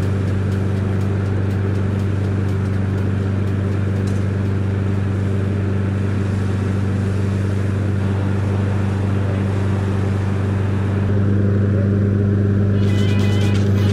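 A walk-behind lawnmower's small engine runs at a steady speed with an even, unbroken hum, a little louder about three quarters of the way in. A crackling joins near the end.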